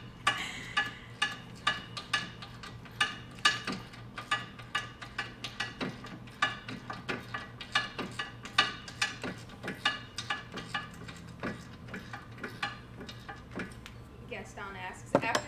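Hand ratchet clicking steadily, about three clicks a second, as it backs out a brake caliper bracket bolt.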